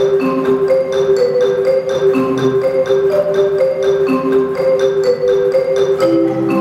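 Music played on a four-octave robotic marimba: quick runs of mallet-struck wooden bar notes, several a second, over a steady sustained chord.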